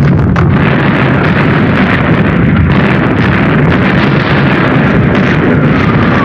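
Naval gunfire support bombardment: a loud, continuous rumbling din with a few sharp cracks just at the start, and a slowly falling whistle beginning near the end.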